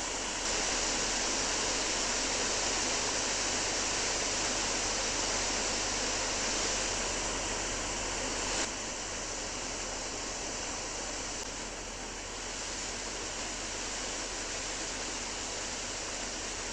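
Steady rush of a fast-flowing, swollen river, dropping slightly in level a little past halfway.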